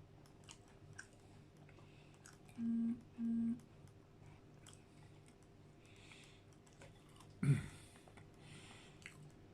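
A person eating: faint mouth clicks and chewing noises, with two short hummed "mm" sounds about three seconds in and a brief grunt-like vocal sound about seven and a half seconds in.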